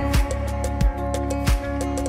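Background music with a steady beat: held chords over regular low drum hits.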